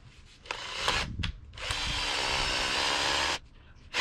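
Power drill spinning an auger bit down into heavy clay soil through a bucket: a brief burst, then a steady motor run of about two seconds that stops abruptly.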